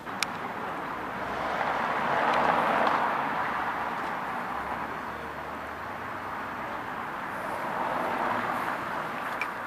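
Car traffic passing on a street: an even hiss of tyres and engine that swells as a car goes by about two and a half seconds in, and again later as another car passes.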